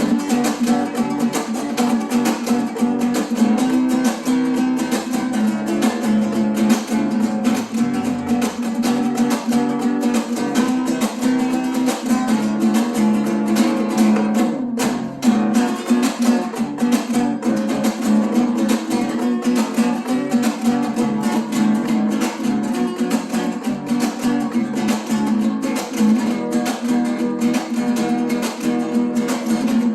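Instrumental acoustic guitar music with a Latin flavour, strummed in a steady rhythm, with a brief break about halfway through.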